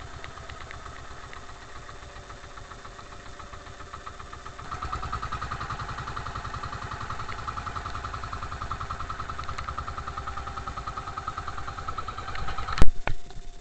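Outrigger boat's engine running steadily with a fast, even beat, growing louder about five seconds in. Near the end, a single sharp knock.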